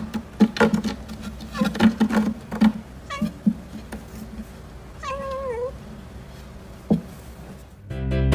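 Domestic cat vocalising: a run of short, quick clicking chirps for the first three seconds or so, a brief call, then about five seconds in a single wavering meow.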